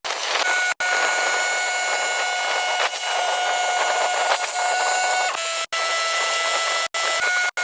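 Sawmill blade cutting through a sycamore log: a steady whine over a hiss of cutting. The sound breaks off abruptly for an instant several times, and its pitch shifts a little after each break.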